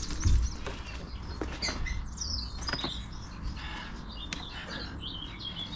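Small birds chirping and singing, with many quick overlapping calls. A dull thump just after the start and a few sharp knocks come from work nearby.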